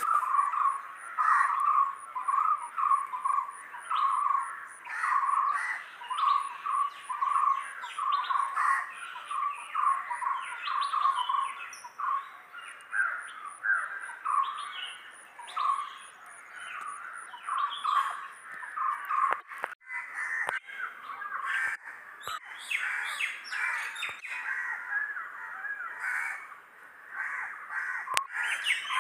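Many birds calling and chirping over one another in short repeated calls. A faint, fast, even high ticking runs beneath them for the first two-thirds, and the calling grows denser after that.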